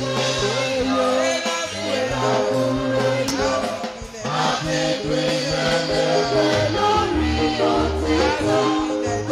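Church hymn sung in Yoruba: several voices singing over instrumental accompaniment with a bass line, dipping briefly about four seconds in.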